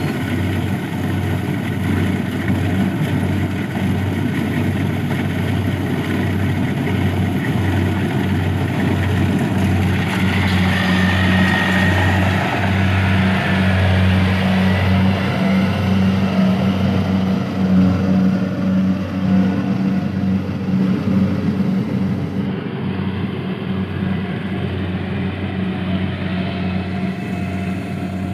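A small engine running steadily for the whole stretch, with a fast even throb and a little extra rattle and hiss in the middle.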